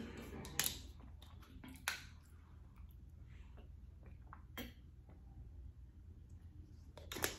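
Cap of a plastic water bottle twisted open with a sharp crack, then sips of water swallowed from the bottle, with scattered small clicks and a cluster of louder clicks near the end.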